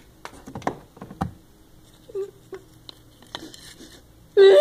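Light clicks and knocks of plastic toy pony figures being handled and set down on a wooden surface. A loud, high-pitched, wavering voice breaks in near the end.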